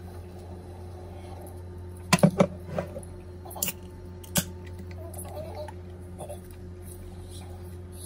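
Sharp clicks and knocks of things being handled at a table: a quick run of three about two seconds in, then a few single ones over the next two seconds, over a steady low hum.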